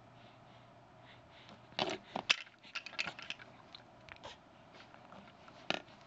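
Two short sneezes, one about two seconds in and the other near the end, with small clicks and rustles between them.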